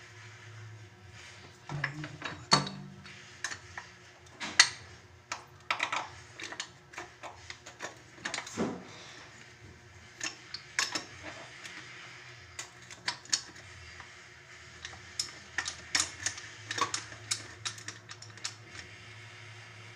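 Irregular clicks, knocks and clinks of hard objects being handled, over a steady low hum.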